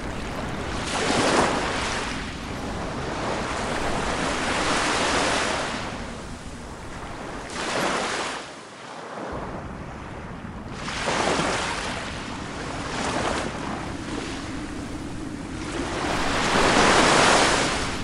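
Ocean surf: waves breaking and washing in, the rush of water swelling and ebbing every few seconds, loudest near the end.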